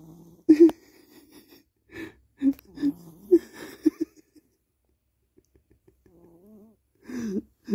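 A cat snoring loudly with wheezy, rasping breaths, in short bursts that stop for a few seconds partway through and come back near the end.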